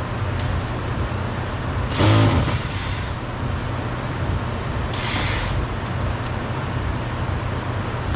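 Steady background traffic rumble, with a loud, short hiss about two seconds in and a shorter hiss about five seconds in.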